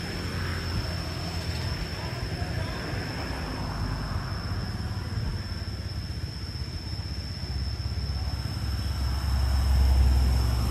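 Low rumble of a vehicle engine running, growing louder near the end, under a steady thin high-pitched whine.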